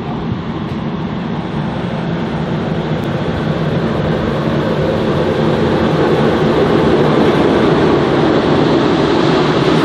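NSW TrainLink Endeavour diesel railcar set pulling into the platform. Its diesel engines give a steady hum that grows louder as the train draws alongside.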